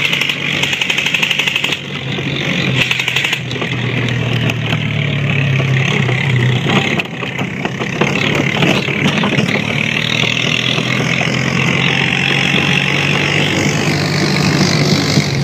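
Quad bike (ATV) engine running under way as it tows a trailer, a steady hum that rises a little for a few seconds in the middle, with a constant rushing noise of the ride and scattered small knocks.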